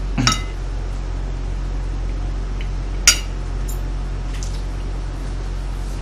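Metal spoon and fork clinking against a ceramic dinner plate while eating: a ringing clink just after the start and a sharper, louder one about three seconds in, with a few lighter taps after it. A steady low hum runs underneath.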